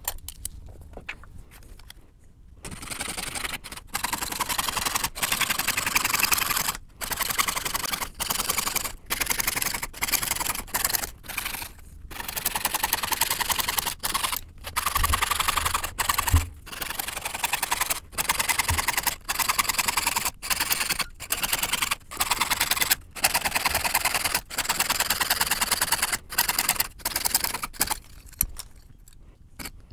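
Jeweler's saw cutting thin annealed copper sheet: a fast, steady rasp of short strokes that starts about two and a half seconds in and is broken by brief pauses.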